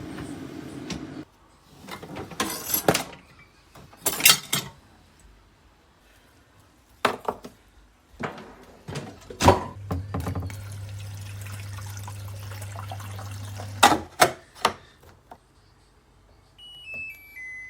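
Mini countertop dishwasher at work: scattered splashes and knocks, a steady low motor hum for about four seconds from about halfway in, then a short electronic chime of beeps stepping down in pitch near the end.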